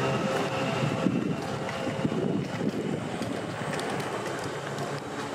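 Wind buffeting the microphone: an uneven low rumble in gusts, strongest between about one and three seconds in.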